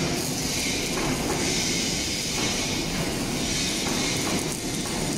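Steady rushing, hissing workshop noise with no distinct events.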